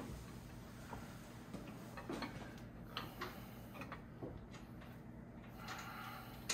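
Faint, irregular metallic clicks and taps of a front strut assembly being held up in the wheel well while its top studs are lined up for the nuts. A sharper click comes at the very end.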